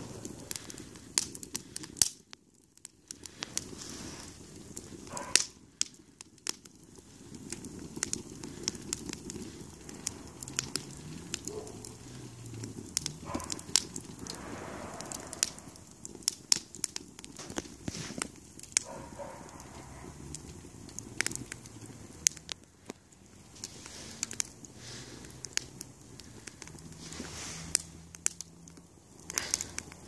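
Kiln-dried kindling burning hard in a metal ice-bucket fire pit: fire crackling with frequent irregular sharp pops and snaps, several much louder than the rest, over a low rush of flame.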